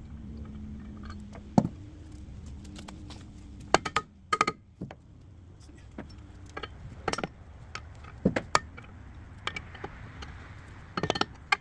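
Sharp metal clinks and clanks, irregular and scattered, as a steel mounting bracket is worked loose and taken off a hydraulic excavator thumb. A low steady hum runs under the first few seconds and then fades.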